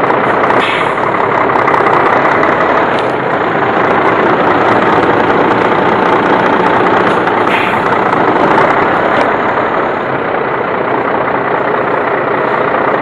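Heavy truck's diesel engine running at low revs while the truck creeps slowly back and forth, with two short hisses, one about a second in and one near eight seconds.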